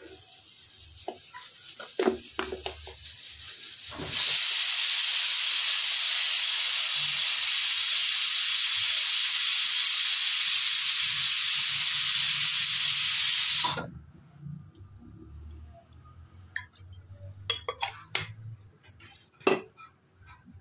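Steam hissing loudly and steadily for about ten seconds, starting and stopping abruptly, as from a pressure cooker venting through its whistle. A few light clinks of a spoon on an aluminium pot come before it.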